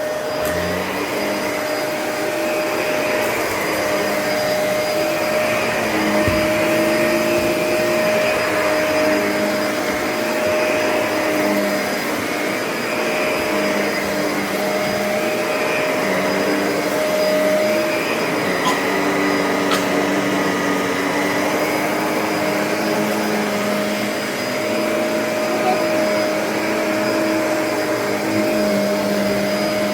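Vacuum cleaner running steadily, with a constant whine and a lower hum that rises and falls in pitch every second or two as it is worked over the floor.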